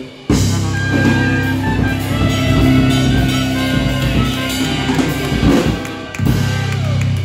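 Live Dixieland jazz band playing, with trombone, trumpet and saxophone over electric bass and drum kit. The music breaks off for a moment right at the start, then carries on until it stops at the very end.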